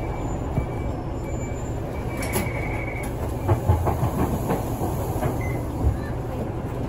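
City bus running, heard from inside the cabin: a steady low rumble of engine and road, with body rattles and a few sharp knocks, the loudest a little past the middle.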